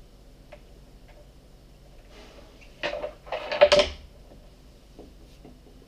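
Dice shaken in cupped hands, a rattling clatter of about a second starting about three seconds in, after a few faint clicks of game pieces on the board.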